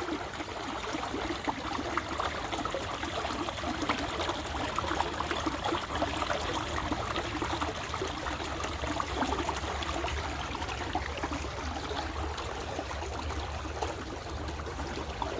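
Fast-flowing floodwater running as a stream, a steady dense splashing and gurgling with a low rumble beneath it.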